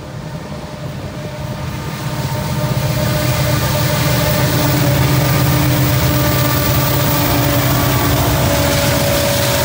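Union Pacific diesel freight locomotives approaching and passing close by, a steady engine drone that grows louder over the first few seconds as the lead unit nears and then holds.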